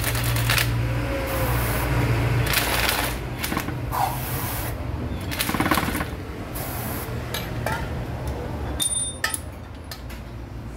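Cordless drill running a thread-cleaning bit in the head-bolt holes of an engine block, with repeated short hisses of aerosol brake cleaner sprayed into the holes. The threads are being cleared of dirt and rust so the head bolts will torque correctly.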